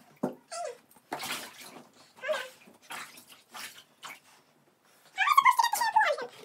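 A dog whining while being bathed: two short whines early on, then one long wavering whine near the end that falls in pitch. Water splashes in the tub between them.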